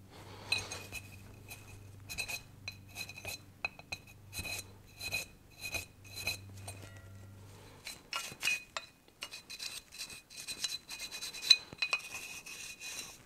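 Irregular scraping, clicks and clinks of a small metal pick and parts against an electric motor's end bell as it is cleaned out and handled.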